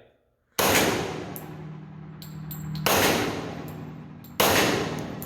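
Three pistol shots from a 2011 handgun: two seconds apart, then a second and a half, each followed by a long ringing decay.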